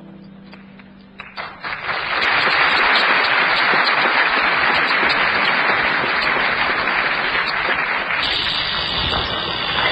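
Audience applauding: a few scattered claps about a second in swell quickly into steady full applause.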